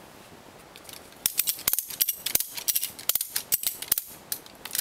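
Heavy-duty ratchet strap being tightened: the steel ratchet buckle is worked back and forth, its pawl clicking in quick bursts, one burst per stroke of the handle. The clicking starts about a second in.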